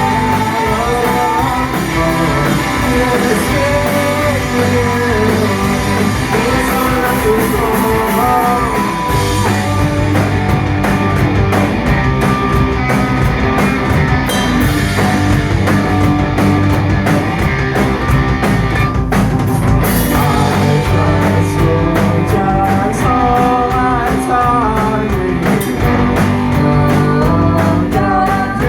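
Rock band playing live: a singer over guitars and drums, loud and unbroken, with steady cymbal and drum hits through the second half.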